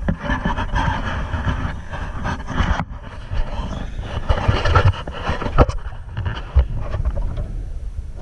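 Irregular low rumbling with many short knocks and bumps from a small rowboat's hull: water slapping against it and things moving aboard, with a brief lull about three seconds in.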